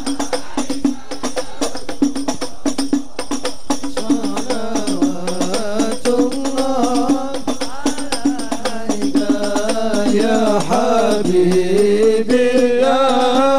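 Sholawat devotional song with a hadroh ensemble: rebana frame drums keep beating while, from about four seconds in, a solo male voice sings a long, ornamented melody over them that grows louder toward the end.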